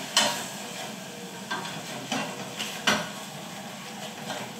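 A utensil stirring and scraping the bottom of a saucepan, knocking against the pan about five times, over the steady sizzle of vinegar boiling down. The pan is being deglazed, the stirring loosening the browned bits stuck to its bottom.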